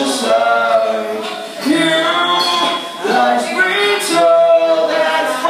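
Live rock band playing: electric guitars and bass under a male vocalist singing into the microphone.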